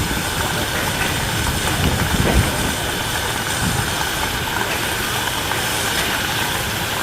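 Harz narrow-gauge steam locomotive standing with steam hissing steadily, with a dull knock about two seconds in.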